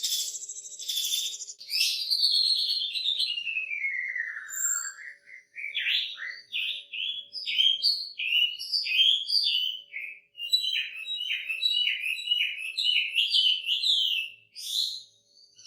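Chinese hwamei singing a loud, varied song. It opens with a long whistle that falls steadily in pitch, then breaks into rapid runs of short, sharp notes. The song is the kind prized by keepers for its rich 'isian', imitations of other birds worked into it.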